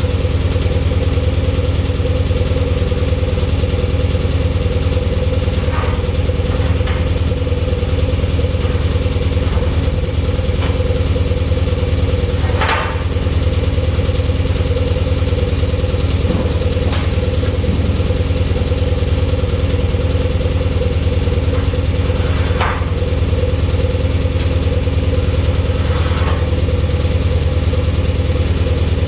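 Grove crane's Onan propane engine idling steadily. A few brief knocks are heard over it, the clearest about 13 and 23 seconds in.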